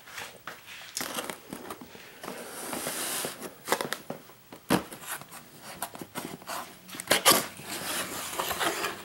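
Cardboard boxes handled on a wooden tabletop: a box slid across the table and its lid pulled open, with scraping and rustling of cardboard and several sharp knocks, the loudest about seven seconds in.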